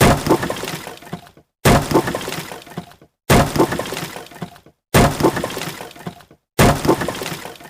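A crash of something breaking, followed by a scattering, crackling tail about a second long. The same crash repeats five times, about every second and a half.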